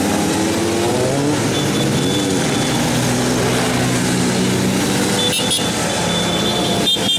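Road vehicle engines running and passing, their pitch rising and falling.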